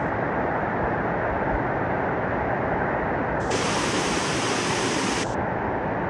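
Waterfall's water rushing steadily, a constant even hiss; the hiss sounds brighter for a couple of seconds past the middle.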